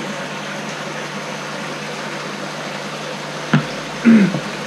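Steady machine hum and hiss in the room, broken about three and a half seconds in by a sharp knock as small plastic test tubes are set down on a table, followed half a second later by a brief louder sound.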